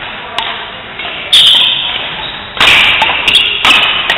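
Badminton doubles rally: sharp cracks of rackets hitting the shuttlecock in quick, irregular succession, about seven strikes, the hardest two about a second and a half in and near three seconds. Each hit echoes in the sports hall.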